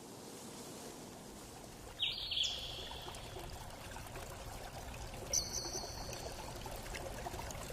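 Steady rush of falling water from a waterfall, with a bird giving two short high calls, one about two seconds in and a higher one a little past five seconds.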